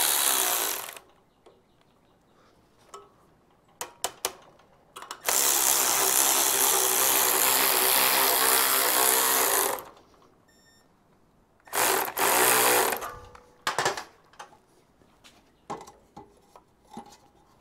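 Cordless electric ratchet running in bursts: a short run ending about a second in, a longer steady run of about four and a half seconds, then another short run. It is driving down a screw-type valve spring compressor on an LS cylinder head to compress the valve springs. Light metal clicks and taps come between the runs.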